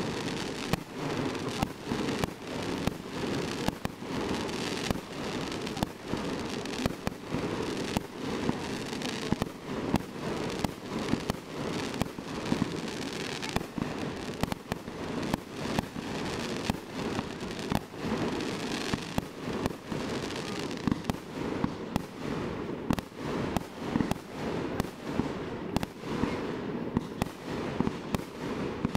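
Fireworks display: aerial shells bursting overhead, a string of sharp bangs in quick, irregular succession.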